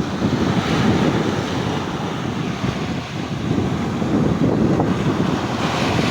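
Stormy sea surf washing in continuously, with strong wind buffeting the microphone; surges of wave wash come about a second in and again near the end.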